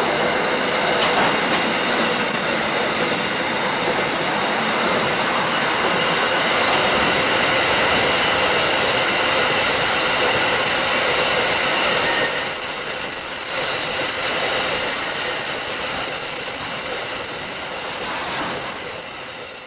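Container wagons of an SCT intermodal freight train rolling past on the rails, a steady loud wheel-on-rail noise with several steady high tones ringing over it. The sound fades away near the end as the last wagons pass.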